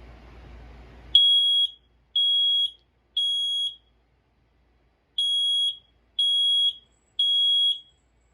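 Kidde i9010 smoke alarm sounding on test: two rounds of three loud, high-pitched beeps, each about half a second long, with a longer pause between the rounds. This is the temporal-three evacuation pattern.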